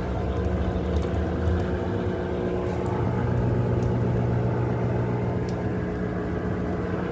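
Consul Maré Super 10 kg top-loading washing machine running steadily while washing a rug, a motor hum with water and fabric churning in the tub. Its low hum shifts up in pitch about two and a half seconds in.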